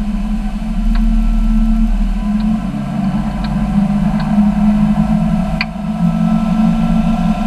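Tow boat's engine running steadily at speed, a constant low drone, with the rush of the churning wake water beneath it. There is a sharp click about five and a half seconds in.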